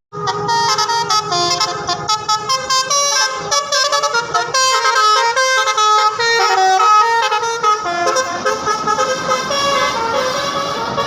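Bus 'telolet' horn, a multi-tone musical horn, playing a rapid melody of short notes that step up and down in pitch.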